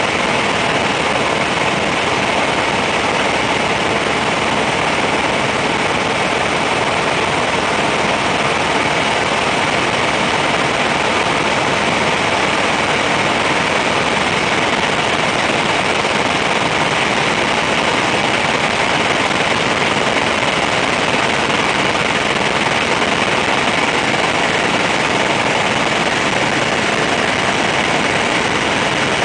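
Helicopter in flight heard from inside the cabin: steady engine and rotor noise with a strong hiss, unchanging throughout.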